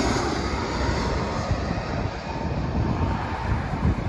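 Jet engine noise of a twin-engine narrow-body airliner on landing approach, dying away as it moves off after passing low overhead and leaving a low rumble.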